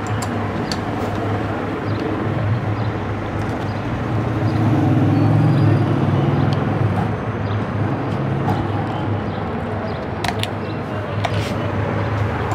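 Steady low hum and rumble throughout, a little louder in the middle, with a few faint metallic clicks from a spanner and screwdriver working a lock nut on the sewing machine, most of them near the end.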